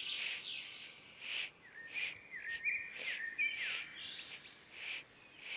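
Short scratchy swishes of a broom sweeping a packed-earth yard, one stroke every half second to a second. Birds chirp throughout, with a brief trill at the start and a run of stepped whistled notes in the middle.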